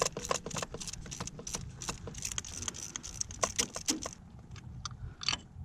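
Small metal engine parts and tools clinking and rattling as they are handled: a quick run of light clicks for about four seconds, then a few scattered ones.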